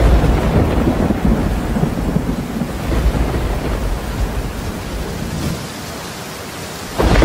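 Loud, dense rumbling noise with no clear pitch, like rain and thunder. It eases off about five and a half seconds in, then surges back suddenly near the end.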